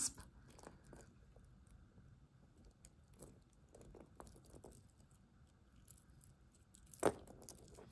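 Faint clicks and light rattling of a silver-tone metal link bracelet and its toggle clasp being handled, with one sharper click about seven seconds in.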